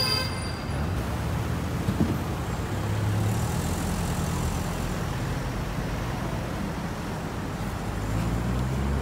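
Road traffic: vehicle engines and tyres running past in a steady low rumble, with one sharp knock about two seconds in.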